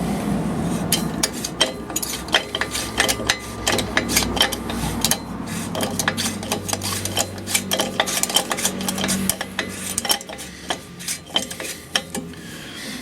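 Irregular light metallic clinks and scrapes of steel parts and hand tools as the new lock nut is fitted onto the MGA's rear half shaft.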